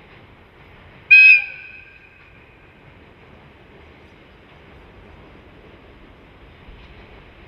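JNR Class DE10 diesel locomotive giving one short horn blast about a second in, which fades away over the next second. Under it is the faint, steady sound of the approaching locomotive.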